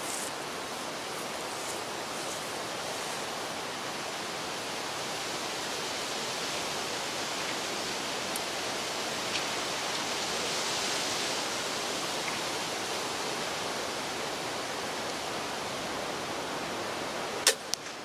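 Steady wind-like outdoor noise, then near the end a single sharp crossbow shot, followed a fraction of a second later by a fainter knock.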